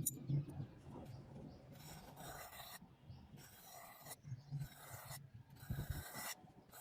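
Hand rubbing strokes of an abrasive, filing or sanding, repeated back and forth about once a second with short pauses between them.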